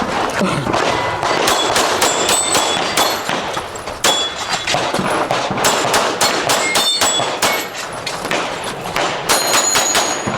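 A string of pistol shots fired in quick succession with brief pauses, many followed by a metallic ring from steel targets being hit.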